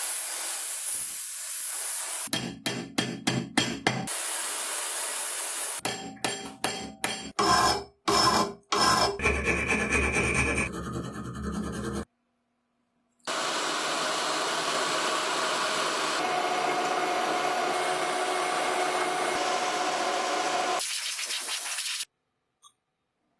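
Hand-tool work on the parts of an old hand drill being restored, heard in a run of short cut-together takes: steady rubbing and scraping like sanding or filing, broken by quick trains of taps and clicks.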